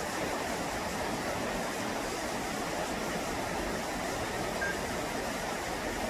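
Steady rushing of a flowing stream, an even wash of water noise with no change in level.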